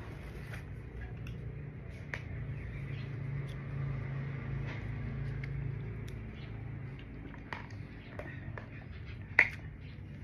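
Scattered light clicks and rustles of bags and their fittings being handled, with a sharper click near the end, over a low steady hum.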